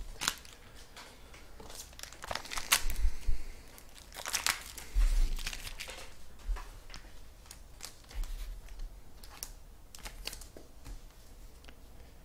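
Trading cards and their plastic or foil packaging being handled, crinkling and rustling in irregular bursts with small clicks.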